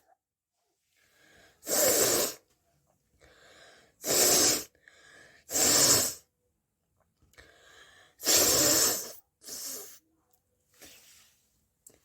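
A person's nose, forcefully blowing air out in five loud blasts of about half a second to a second each, with fainter breaths between them.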